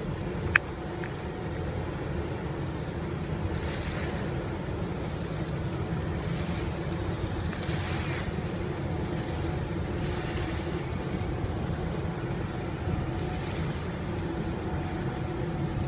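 Steady low hum and rumble of a large moored ship's machinery, with soft swells of wind on the microphone and water lapping. A single sharp click about half a second in.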